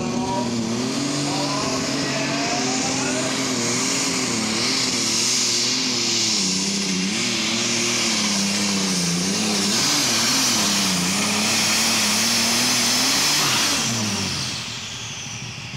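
Super Stock pulling tractor's turbocharged diesel engine running hard under full load, its pitch wavering up and down through the pull. About 14 seconds in, the revs fall away sharply as it comes off the throttle at the end of the run.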